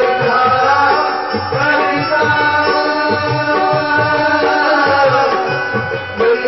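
Live devotional music: tabla playing a steady rhythm of low strokes under sustained, held melody notes.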